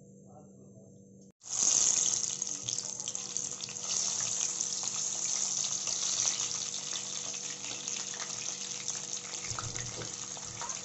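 Two halves of a fish head, rubbed with salt and turmeric, sizzling in hot oil in a pan, with many small spitting crackles. The sizzle starts abruptly about a second and a half in, loudest at first, then slowly eases off.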